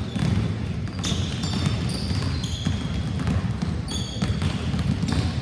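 Many basketballs bouncing on a hardwood gym floor at once, a dense, unbroken patter of thuds, with short high squeaks of sneakers on the floor now and then.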